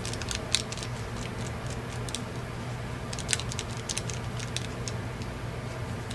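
Paintbrush dabbing and stroking chalk paint onto a paper page: light, irregular tapping and scratching, over a steady low hum.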